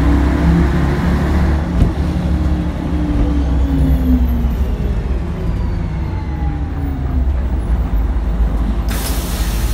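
City bus engine and drivetrain rumbling, heard from inside the bus, its pitch falling as the bus slows to a stop. Near the end comes a sudden loud hiss of compressed air from the air brakes.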